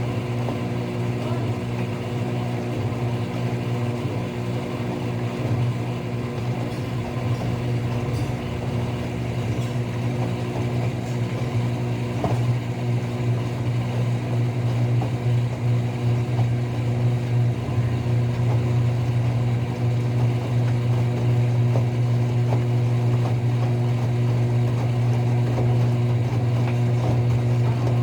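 Enxuta Euromatic washing machine's motor running with a steady hum, growing slightly louder from about halfway through, in its spin cycle.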